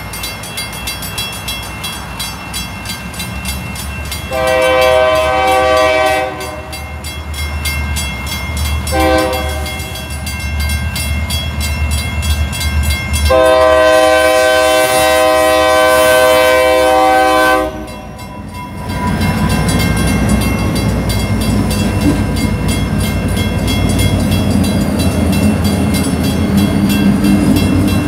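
Three diesel freight locomotives sound a multi-tone air horn at a grade crossing: a long blast about four seconds in, a short one soon after, then a longer blast of about four seconds, over the rapid ringing of the crossing bells and the low rumble of the engines. In the second half the locomotives have passed and covered hopper cars roll by with a steady rumble and wheel clatter on the rails.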